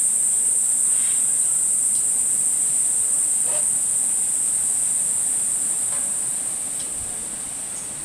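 Steady, high-pitched drone of an insect chorus, with a few faint ticks; it fades out near the end.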